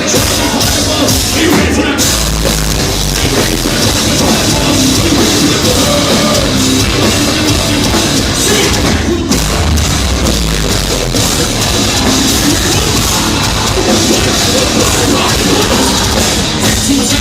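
Heavy metal band playing live at full volume, with distorted guitars, bass and pounding drums, and a brief break in the music about nine seconds in.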